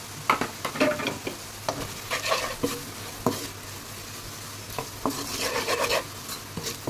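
Wooden spatula stirring and scraping chopped onions and spices around a pan of hot oil, with a light sizzle. The stirring comes in two spells, the first about a second in and the second around five seconds in.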